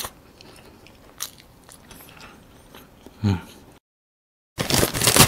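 Soft, quiet mouth sounds of chewing a cake sandwich with small clicks, and a short closed-mouth hum about three seconds in. After a brief dead-silent cut, plastic snack packaging crinkles loudly near the end.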